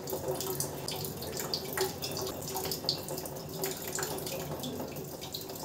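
Water running, with irregular drips and small clicks.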